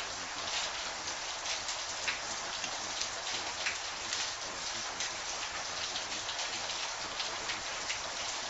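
Steady rain: an even hiss with many small, sharp drop taps scattered through it.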